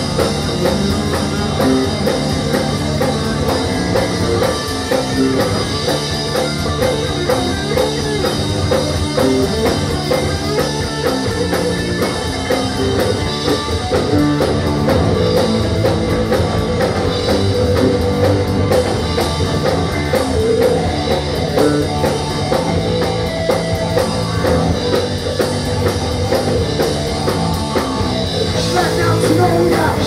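Rock band playing live: electric guitars and a drum kit, loud and steady.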